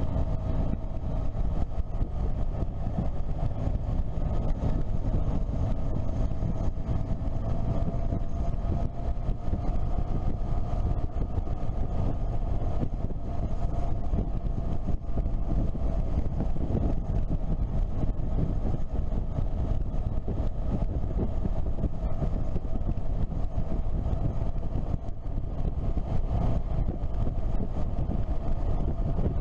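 Motorcycle riding at a steady cruise: an engine note that drifts slightly in pitch over heavy wind buffeting on the camera microphone.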